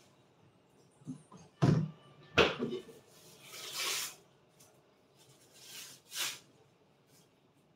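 Kitchen handling noises: a few sharp knocks and clunks from items being set down or handled at a kitchen counter, then two short rustling, swishing noises.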